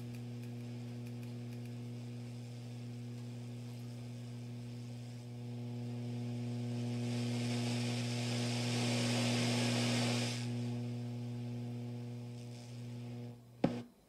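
Acoustic B25C bass combo amp putting out a steady buzzing hum through its speaker, noise that the volume and tone knobs don't change, the sign of a fault inside the amp. A louder hiss swells over it for about five seconds in the middle, and near the end the sound cuts off with a pop.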